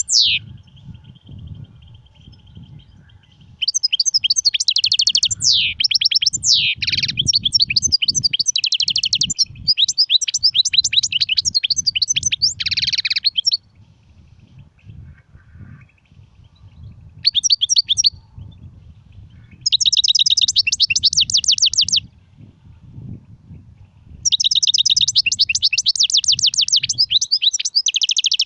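European goldfinch singing: bursts of rapid, high twittering song phrases, the longest lasting about ten seconds, broken by short pauses, over a faint low rumble.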